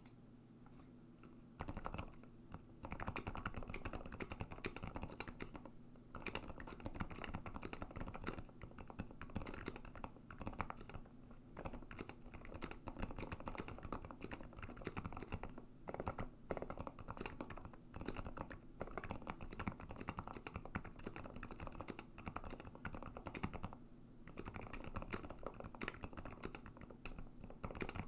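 Fast typing on a KBDfans KBD75 v3.1 mechanical keyboard fitted with lubed and filmed Gateron Silent Black switches, Gateron Ink Gold stabilizers and OEM Dolch keycaps: a dense, steady patter of key presses that starts about a second and a half in, with a couple of brief lulls.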